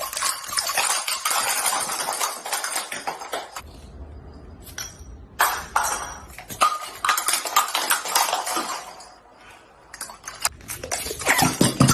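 Dense run of sharp, bright clicks and crackles, in two long stretches with a quieter gap of a few seconds between them.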